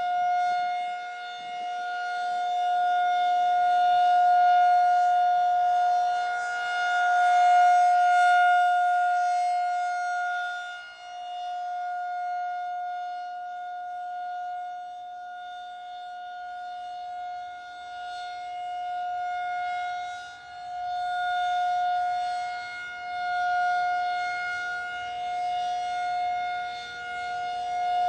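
Federal Signal 2001-SRN outdoor warning siren sounding a steady wail during a monthly tornado siren test. It holds one pitch throughout, while its loudness swells and fades several times.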